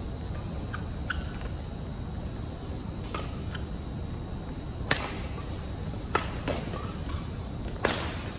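Badminton rally: rackets striking the shuttlecock, four sharp hits roughly one to two seconds apart from about three seconds in, with a few lighter taps from the players' footwork in between.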